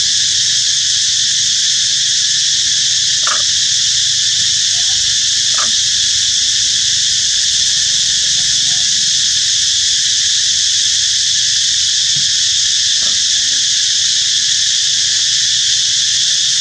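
Steady, loud insect chorus droning without a break, with a few faint short clicks about three, six and thirteen seconds in.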